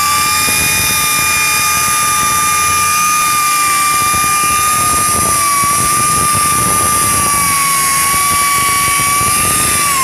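Woodpecker 2-inch pneumatic air sander running while sanding a wooden chair: a steady high whine over a hiss of air, its pitch sagging slightly now and then.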